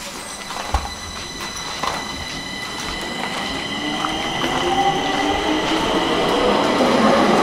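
Stockholm metro train pulling away from the platform. Steady high-pitched ringing tones run through it, and from about halfway a whine from the electric traction motors rises in pitch as the train accelerates, growing steadily louder.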